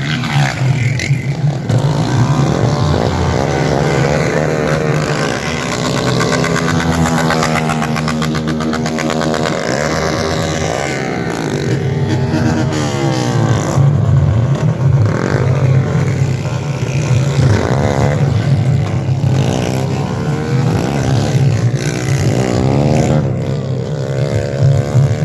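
Several motorcycle engines revving at high rpm, their pitch repeatedly rising and falling over a steady low engine drone.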